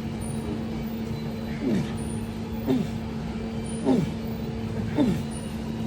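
A man's short, strained grunts falling in pitch, four of them about a second apart, as he drives through reps of front plate raises. A steady hum runs underneath.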